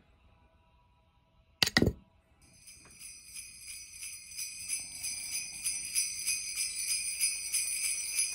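Sleigh bells shaken in a steady rhythm, growing steadily louder, in a Christmas music track. A short loud burst comes about a second and a half in, before the bells start.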